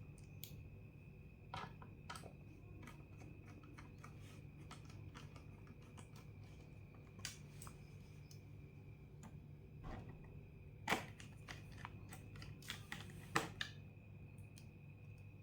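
Light scattered clicks and taps of a small screwdriver driving the bottom-case screws back into an Acer Aspire 5 laptop, with two sharper clicks near the end, over a faint steady hum.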